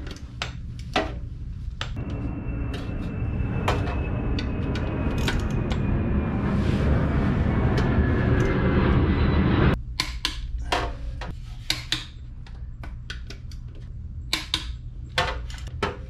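Metal clicks and clinks of a wrench working the rear wheel bolts of a BMW K1600 motorcycle. For several seconds in the middle a steady rushing noise with a faint falling tone drowns them out, then cuts off suddenly.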